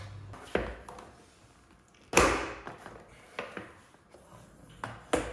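Plastic knocks and clicks as a Hozelock hose reel is handled and its winding handle is pushed into the drum, with one loud clunk about two seconds in and a few lighter knocks after.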